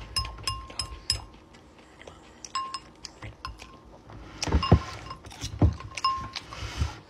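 Metal fork clinking against a glass bowl while scooping food: a run of quick taps, many leaving a short glassy ring. A few duller, heavier thumps come in the second half.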